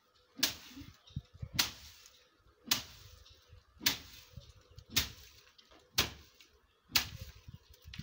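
A long wooden stick whacking a pile of dry bean plants on the ground, threshing the well-dried pods to knock the beans out. Sharp slaps come about once a second, evenly paced.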